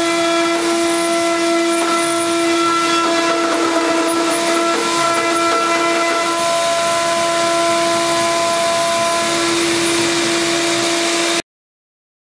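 2 kW Teknomotor electrospindle on a CNC router, running with a steady high whine while its end mill cuts aluminum plate. The end mill flutes are filling up with chips and starting to ride over the cut. The sound stops abruptly near the end.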